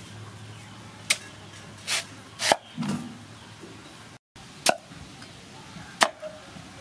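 Cleaver chopping through a peeled bamboo shoot onto a wooden chopping block: about six sharp chops, roughly a second apart.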